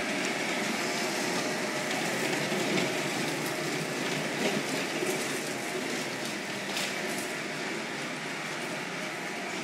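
Tamiya King Hauler RC truck's electric drive whirring steadily as it tows a drawbar road train of trailers over a concrete floor, with the wheels rolling and a few light clicks from the trailers. The sound eases slightly near the end as the truck moves away.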